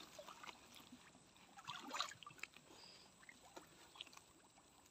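Near silence with faint, scattered small splashes and sloshes of water, the loudest cluster about two seconds in.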